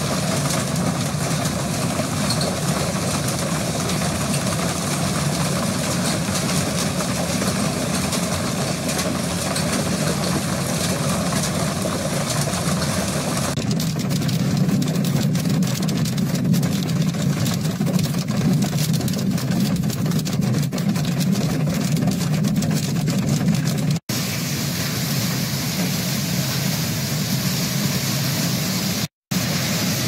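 Heavy hailstorm: a loud, steady roar of hail and wind. From about the middle, dense clicks of hailstones striking surfaces are heard. The sound changes abruptly twice and drops out for a moment near the end.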